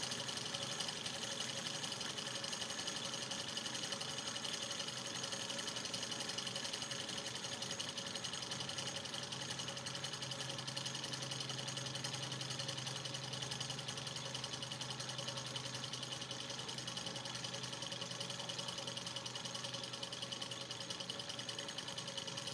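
Robart model Stirling engine running steadily, its pistons and flywheel making an even, fast mechanical chatter. It is coasting on residual heat held in its glass hot cylinder after the alcohol lamp has been taken away.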